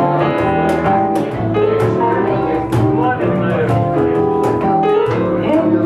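Live band playing an instrumental passage of a slow jazzy song: electric guitar, keyboard piano and electric bass, with sharp percussive ticks recurring on the beat.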